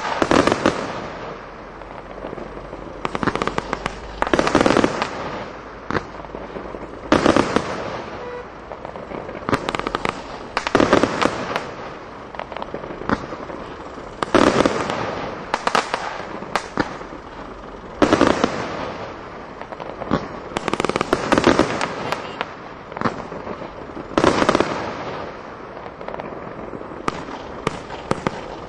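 Crossette fan firework cake firing. A shot goes off every few seconds, each followed by a quick cluster of sharp cracks as the crossette stars split in the air.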